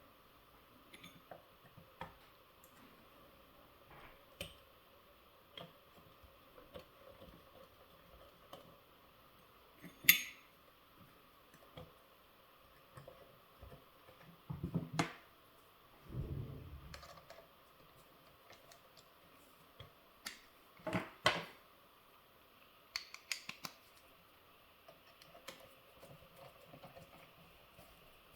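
Scattered small clicks, taps and knocks of hand tools and small parts being handled while an RC loader's track assembly is put back together, with a sharp click about ten seconds in and a duller thump a few seconds later.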